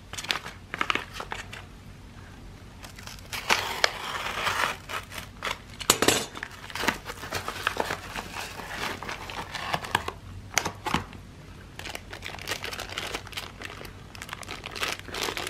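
A padded paper mailer being cut open with a utility knife and unpacked: crinkling and rustling of the envelope, bubble wrap and a plastic parts bag, with irregular clicks and scrapes and a longer rustle about four seconds in.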